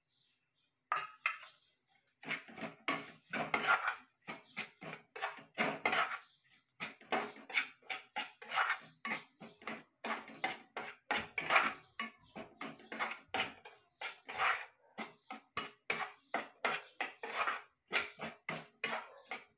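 Steel spatula scraping and stirring roasted lapsi (broken wheat) in a non-stick kadhai, in quick repeated strokes of about two a second, starting about a second in.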